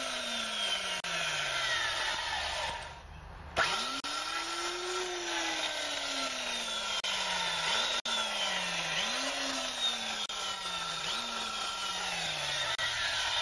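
Vintage Mall electric chainsaw (model 11E12) running free without cutting, in repeated bursts. Each time its motor speeds up quickly, then winds down with falling pitch. There are two longer runs and then three short blips before it coasts to a stop near the end.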